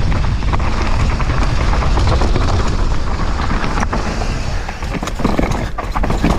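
Wind rushing over a helmet-mounted action camera's microphone with the rattle and clatter of a downhill mountain bike running fast over loose rocks and gravel, many small knocks from the bike and trail.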